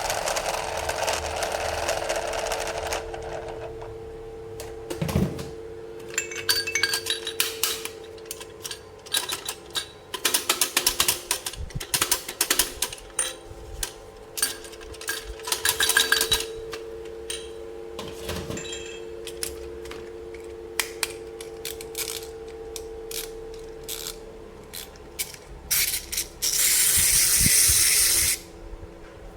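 Small plastic toy parts being handled: many sharp clicks and taps in irregular runs, over a faint steady hum, with a loud two-second hiss near the end.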